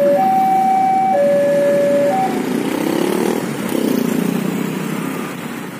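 Railway level-crossing warning alarm sounding two alternating tones, high then low, about a second each, stopping about two seconds in as the passenger train clears the crossing. After it, the rumble of the departing train and motorcycles pulling away over the tracks, fading.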